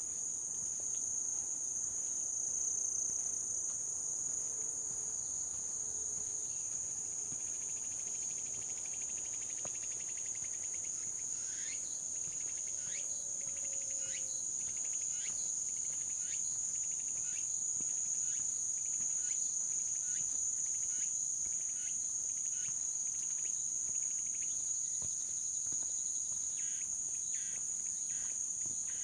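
A steady, high-pitched chorus of insects shrilling without a break. From about a third of the way in, footsteps on the path crunch at an even walking pace, about one a second.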